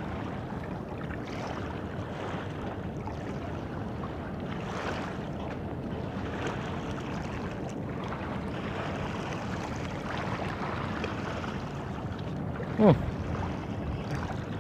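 Steady wind and water noise at an estuary, with one short falling-pitched sound near the end.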